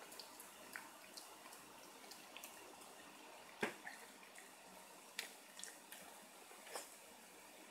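Shiba Inu puppy chewing a treat: faint, scattered wet clicks and crunches, the sharpest about halfway through.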